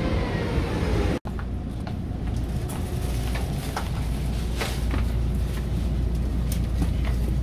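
Steady low rumble inside a Taiwan Railways passenger carriage, with a few light clicks and knocks. It follows a cut about a second in from the sounds of the station platform.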